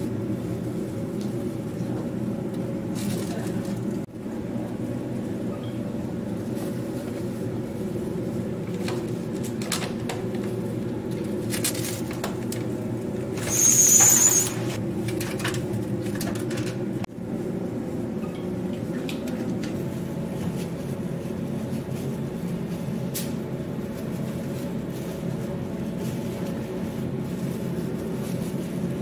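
Steady low background hum with scattered light clicks and rustles of plastic food boxes and plastic gloves being handled. Halfway through comes one louder, brief plastic crinkle or snap.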